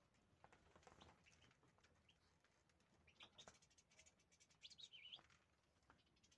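Faint, short high chirps of European goldfinches, with a wavering twitter near five seconds in. Soft rustling about a second in.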